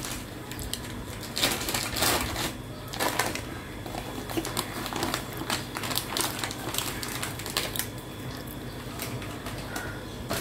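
Irregular clicks and crinkles of a plastic bag being handled as icing sugar is shaken out of it into a steel bowl of crumbly roasted-flour mixture.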